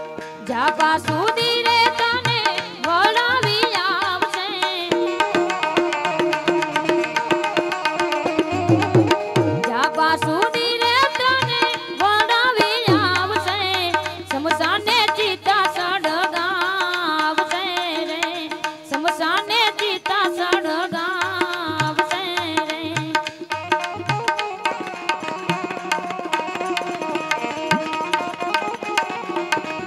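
Live Gujarati bhajan: a woman singing over a harmonium drone with tabla accompaniment keeping a steady rhythm. The voice drops out about two-thirds of the way through, leaving harmonium and tabla playing on.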